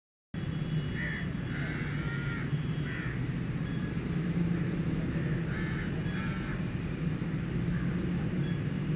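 Crows cawing, a few short harsh calls at a time in scattered bunches, over a steady low background rumble.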